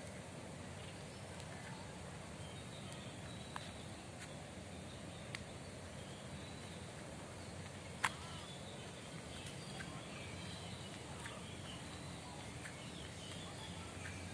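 Outdoor park ambience: a steady low background hum with faint bird chirps, and three sharp clicks, the loudest about eight seconds in.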